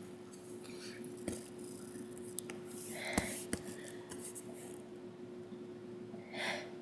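A person's short, quiet breaths during a bout of sneezing, one about three seconds in and another near the end, with a few faint clicks and a steady low hum.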